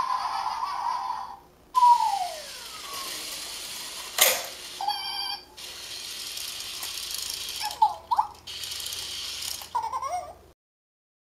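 Amazing Zhus toy hamster's wheel motor whirring as it rolls off its high-dive tower and across the floor mat, with short electronic chirps and squeaks from the toy and a falling tone about two seconds in. A sharp click near four seconds; the sound cuts off abruptly near the end.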